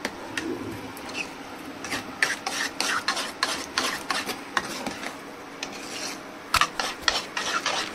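Yogurt with an egg in it being stirred and beaten in a bowl, the utensil scraping and clinking against the bowl in quick, irregular strokes.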